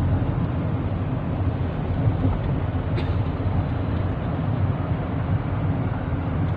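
Steady low rumble of a moving road vehicle, engine and tyre noise, with a faint click about three seconds in.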